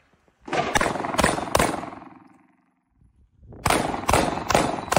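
Springfield Echelon 9mm pistol firing two quick strings of about four shots each, about two seconds apart, each string trailing off in a reverberating echo.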